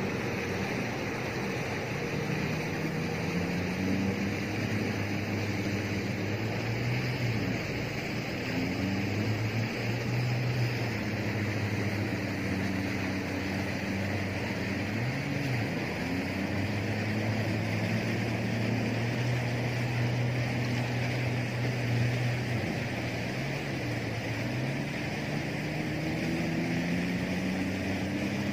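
Boat engine running, its drone wavering up and down in pitch, over a steady rush of wind and water.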